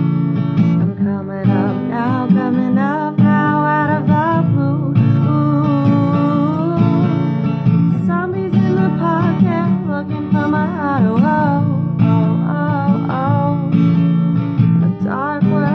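Strummed ukulele chords, with a wavering voice carrying the melody over them.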